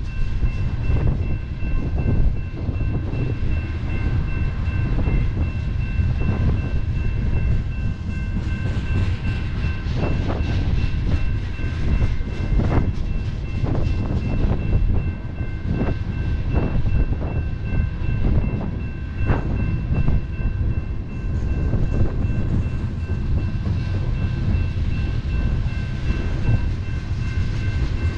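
Freight train of tank cars rolling through a grade crossing: a steady low rumble with wheels clacking over the rails. The crossing's electronic warning bells ring throughout.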